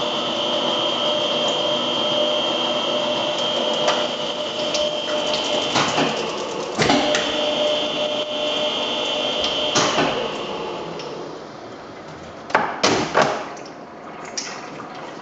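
Turret lathe running with a steady whine as it machines a model diesel engine crankcase, with occasional sharp metallic knocks as the turret is worked. The whine fades out about two-thirds of the way in, followed by a quick run of loud clunks.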